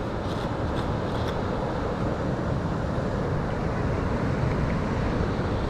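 Steady rushing beach noise of surf and wind buffeting the microphone, with a few faint ticks about a second in.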